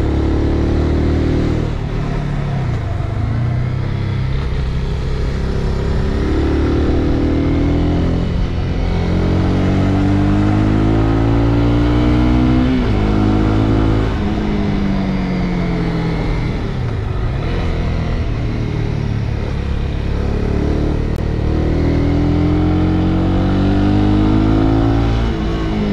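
Motorcycle engine under way, its pitch climbing and dropping back several times, the way revs rise through a gear and fall at a shift or when the throttle closes.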